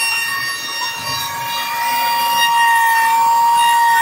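Trim router on a homemade CNC machine running at speed and engraving wood, giving a steady high-pitched motor whine that wavers slightly in pitch.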